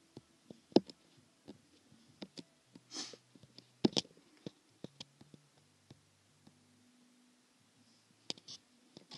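Fingertips tapping an iPad touchscreen: scattered sharp taps, the loudest about a second in and near four seconds, with a short puff of hiss near three seconds, over a faint low hum.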